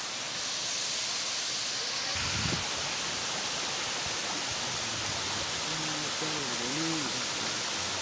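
Rushing water of a rocky forest stream and waterfall, a steady splashing rush, with a soft low thump about two and a half seconds in.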